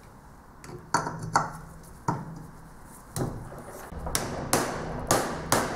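About eight light, uneven hammer taps on the end cover of a Bosch 230/231 series starter motor, seating the cover down onto the starter housing during reassembly.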